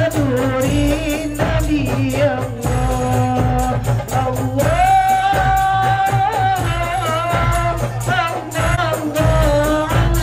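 A woman singing a melodic religious song into a microphone, with held, ornamented notes, accompanied by a group beating hand-held rebana frame drums in a steady rhythm.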